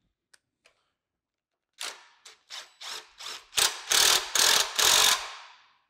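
Cordless impact wrench driving the threaded belt-tensioning screw on an electric motor mount, drawing the motor back to tighten the drive belt. It runs in several short bursts, then hammers steadily for about a second and a half before winding down.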